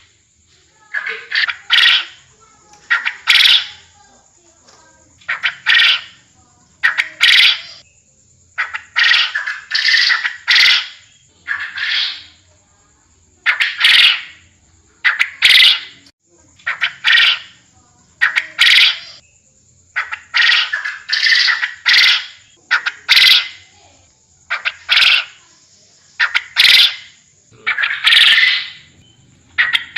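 Puyuh kebon quail calling over and over: short, loud, half-second calls about every one to two seconds, often in quick pairs. A faint steady high hiss runs underneath.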